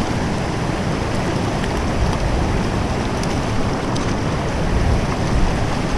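Fast-flowing stream water rushing steadily over rocks.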